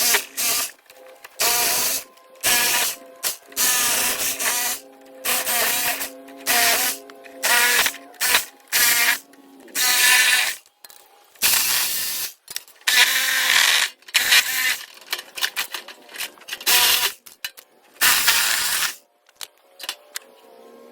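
A hand tool working fasteners loose during disassembly of an air conditioning condenser, in some fifteen short bursts of under a second each with brief pauses between them. Background music with held notes runs underneath.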